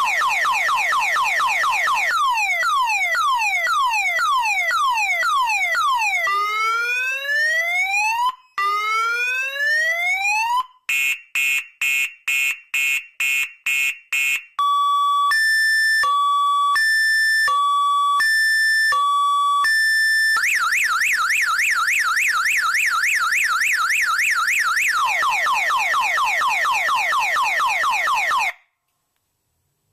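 A DEI 514N six-tone 12-volt car alarm siren runs through its tones. It goes from a fast warble to repeated falling chirps, then two slow rising whoops and a run of rapid beeps. After that comes a hi-lo two-tone alternation and the fast warble again, which cuts off suddenly near the end.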